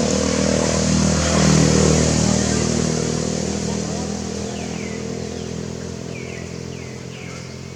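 A motor vehicle's engine passing: its steady hum grows louder, peaks about a second and a half in, then fades away. A few short, high calls that fall in pitch come in the second half.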